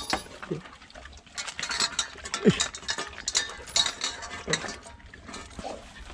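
Metal clinking and rattling from an aluminium dog-crate door and a brass leash snap hook being clipped to a ring on a vehicle, in a string of short sharp clicks. A short falling voice-like sound comes about two and a half seconds in.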